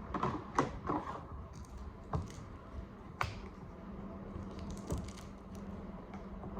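Hands working a moist rice-bran fishing bait mix in a container: irregular short clicks and rustles, several close together in the first second, then a few scattered ones, over a low steady hum.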